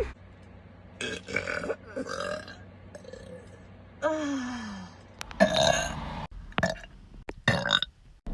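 Girls burping, one after another: several short burps, a longer one about four seconds in that slides down in pitch, and the loudest, a rough burp, about five and a half seconds in.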